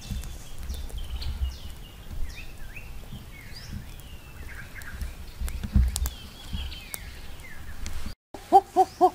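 Birds chirping in short, repeated slurred calls over a low outdoor rumble, with a few faint clicks. Near the end, after a brief cut, a run of short, evenly spaced hoots starts, louder than the birds.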